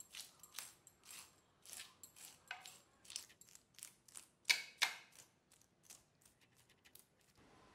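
Blade scraping scales off a whole rohu fish: a run of short, crisp scraping strokes, irregularly spaced about one or two a second, the two loudest about halfway through, thinning out near the end.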